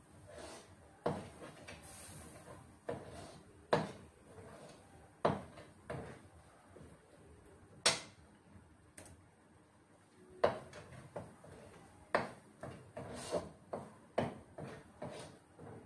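Metal spoon scraping and clinking against a metal frying pan while a flour-and-butter roux is stirred. The sharp clinks come every couple of seconds, then faster and closer together in the last third.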